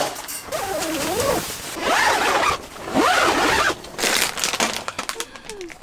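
Rustling, crinkling handling noise, with a few short wordless vocal sounds that rise and fall in pitch.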